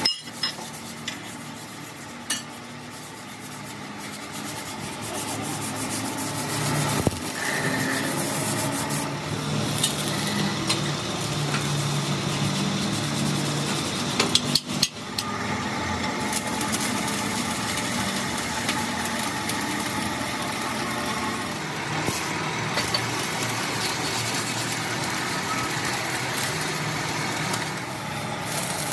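Steel plates and pipes knocking and clinking as they are handled and fitted together, with a cluster of louder metal knocks about halfway, over a steady workshop hiss.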